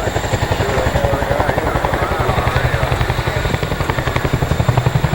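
CH-47 Chinook tandem-rotor helicopter running, its rotors making a fast, steady, rhythmic beat.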